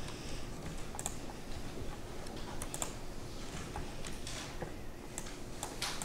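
Irregular keystrokes clicking on a computer keyboard while a CAD/CAM program is operated, over a steady low background noise.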